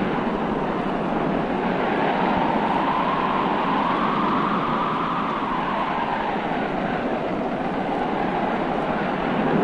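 Gale-force storm wind, a loud steady rush with a broad howl that rises in pitch about halfway through and falls away again.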